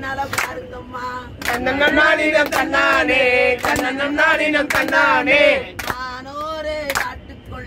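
A group of voices singing a Tamil kummi folk song, kept in time by hand claps roughly once a second. The singing swells louder for a few seconds in the middle.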